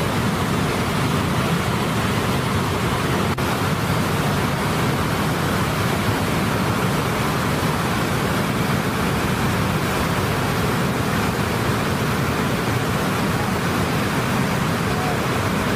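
Brown floodwater pouring over a weir and rushing down a swollen river: a loud, steady roar of water.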